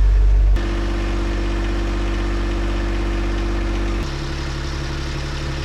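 Yanmar 3YM30 three-cylinder marine diesel running steadily during a dockside fuel-system test run. Its tone and loudness shift abruptly about half a second in and again about four seconds in.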